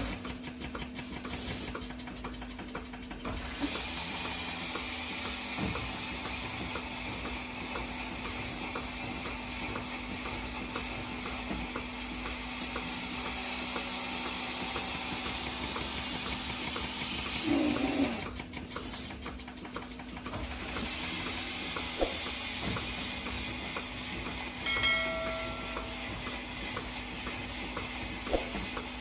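Robotic milking machine running under a cow: a steady hiss of air and vacuum over a low hum. The hiss drops out briefly twice, and a short tone sounds near the end.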